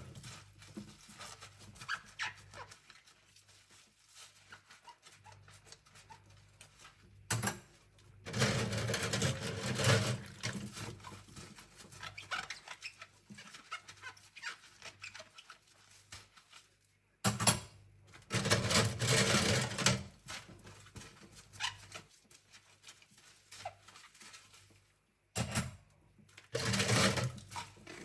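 Cutlery being scrubbed by hand at a sink: small metal clinks and scrapes of spoons and forks. Tap water runs three times in short bursts, a couple of seconds each.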